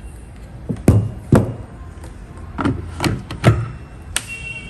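Plastic knocks and clicks of an 18V Ryobi ONE+ battery pack being handled and pushed onto the battery mount of a cordless compact miter saw: about six sharp taps, with a sharper click near the end.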